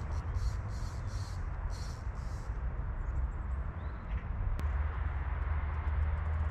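Wind buffeting the microphone outdoors, a steady low rumble, with a run of short high-pitched calls about two a second during the first two and a half seconds and a single sharp click about four and a half seconds in.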